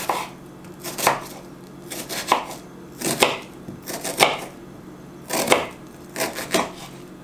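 Kitchen knife slicing an onion on a wooden cutting board: about a dozen sharp knocks of the blade against the board, unevenly spaced, sometimes in quick pairs.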